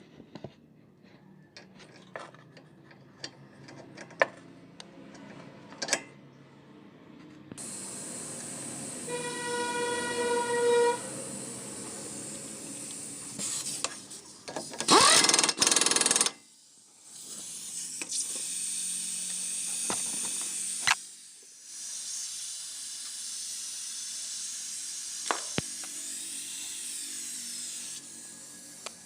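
Scattered metallic clicks and knocks of tool work, then a power tool or compressed air running in several spells with a strong hiss. One spell carries a steady pitched whine for about two seconds, and a short very loud burst comes about halfway through.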